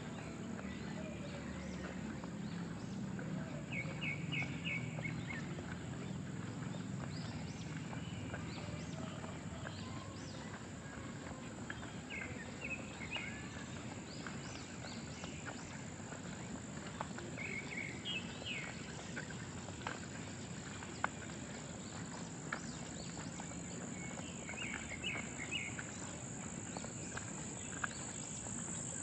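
Steady rain hiss with scattered drips, under a constant high insect trill. About four times a short run of four or five quick chirping notes rises above it.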